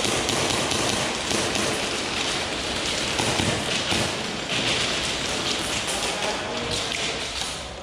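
Airsoft gunfire in a dense rapid patter: guns shooting and BBs ticking against the barricades and walls, with scattered thuds and background voices.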